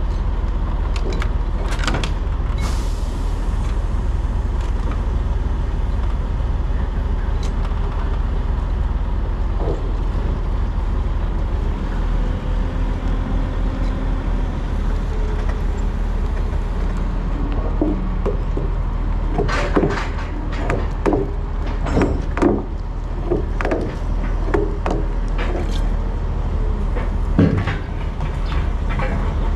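Diesel semi-truck running steadily with a low, even drone. About two-thirds of the way in comes a cluster of short knocks and rattles.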